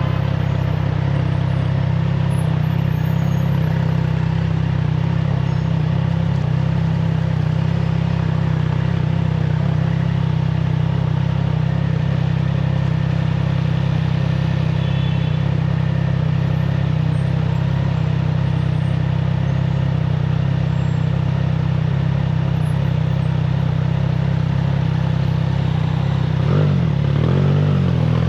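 Triumph Trident 660's three-cylinder engine through an aftermarket FireTong exhaust, running at a steady cruising pitch under way. Near the end the engine note dips and wavers briefly as the revs change.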